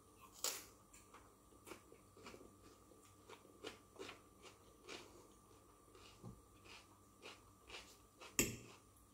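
Someone chewing a mouthful of raw red onion close to the microphone: a run of faint, irregular crisp crunches, with a louder crunch just after the start and a sharp click near the end.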